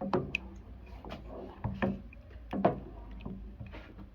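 A spoon stirring milk with garden cress seeds in a pot, knocking and scraping against the pot in irregular strokes, stirred so the seeds don't stick as the milk heats.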